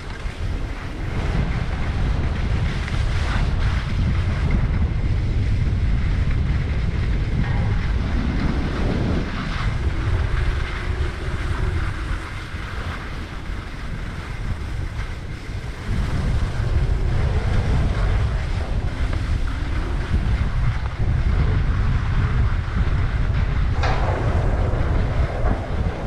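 Wind buffeting a helmet-mounted GoPro's microphone during a downhill ski run, a heavy low rumble with the skis scraping and hissing over the snow. It eases for a few seconds around the middle, then picks up again.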